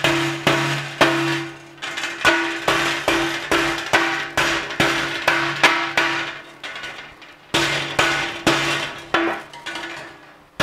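Hammer striking the hooked steel wire ends of welded-wire mesh panels to clinch them together: a steady run of sharp metallic strikes, about two to three a second, each ringing briefly, with a short pause about seven seconds in.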